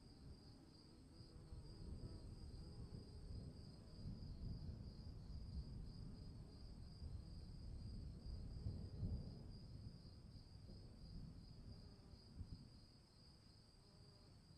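Crickets trilling steadily and faintly. Under them a low rumble of thunder swells through the middle and dies away near the end.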